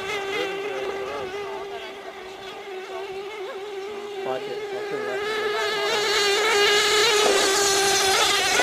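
Radio-controlled tunnel-hull racing boat's small two-stroke engine running at speed with a high, steady buzzing whine. It fades a little as the boat runs away, then grows louder again in the second half as the boat comes back closer.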